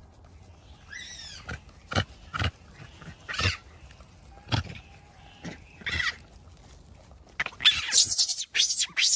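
A macaque biting and chewing crisp napa cabbage leaves close up. Separate sharp crunches come every half second or so, then a quick, loud run of wet crunching near the end.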